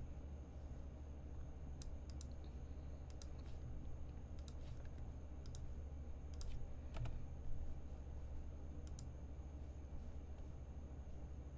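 Scattered, irregularly spaced clicks of a computer keyboard and mouse over a steady low hum.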